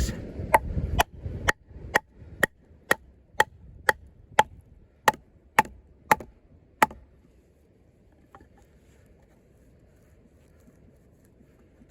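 Batoning: about thirteen sharp blows, roughly two a second, driving a 6 mm-thick combat knife into a log. The blows stop about seven seconds in.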